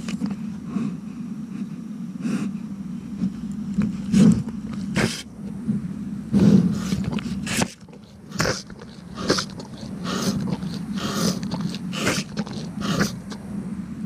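Amur tiger licking and rubbing against a small camera in a tree hollow: a run of irregular wet licks and scrapes right on the microphone, over a steady low hum.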